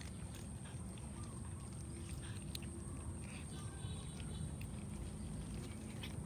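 A cat chewing and tearing at a raw fish, with scattered short wet clicks of biting over a steady low background rumble and a constant high-pitched whine.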